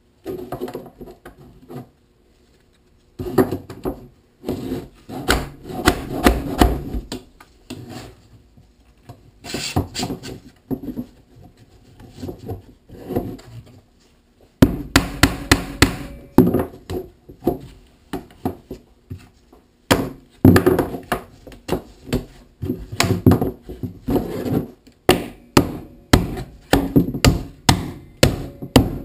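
Rubber mallet knocking plastic-pipe elbow fittings onto a pipe frame, in repeated runs of quick blows that are loudest in the second half, with hands rubbing and handling the pipe and fabric between the runs.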